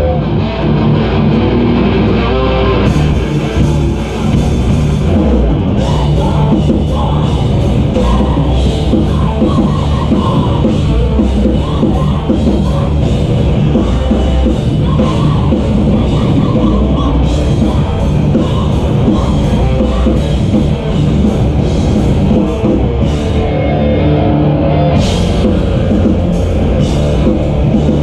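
Loud live heavy rock band playing in the room, a drum kit pounding under the guitars, with frequent cymbal crashes.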